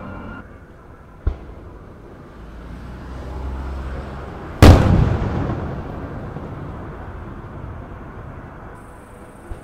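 Aerial fireworks shell bursting with one very loud boom about halfway through, its rumbling echo dying away over several seconds. A smaller sharp bang comes about a second in.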